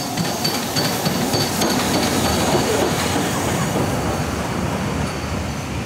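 LMS Black Five steam locomotive 45407 pulling slowly into a station platform with its coaches, wheels and running gear rumbling, with a high squeal that comes and goes.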